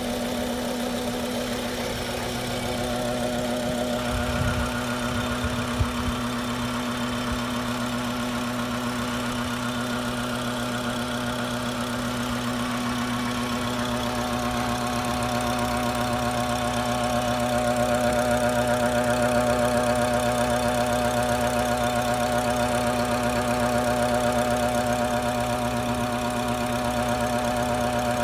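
BMW N55 3.0-litre turbocharged inline-six engine idling steadily with an odd extra noise, which the owner traced to a faulty boost control solenoid. A couple of short knocks sound about five seconds in.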